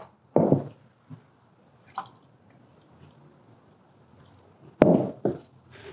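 Beer being poured from an aluminium can into a stemmed glass goblet: a faint, steady splash of liquid. A sharp knock comes near the end.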